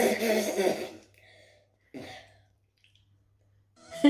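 A child spitting and spluttering into a bowl: a noisy burst lasting about a second, then a shorter one about two seconds in. A short knock right at the end.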